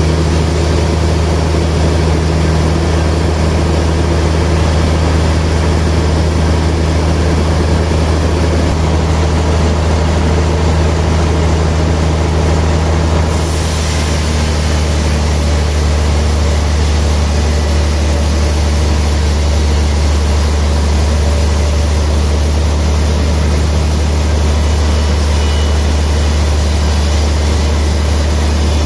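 Sawmill machinery running with a loud, steady low drone. About halfway through, the higher hiss changes abruptly.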